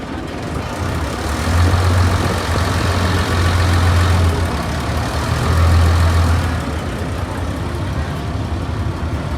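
River boat's engine running with a low hum that grows louder for several seconds in the middle, then eases off.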